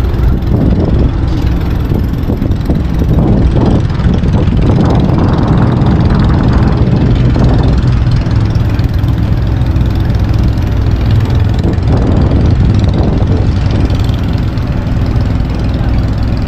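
A roll-on/roll-off ferry's engines running with a steady low drone as the ship comes in to the pier.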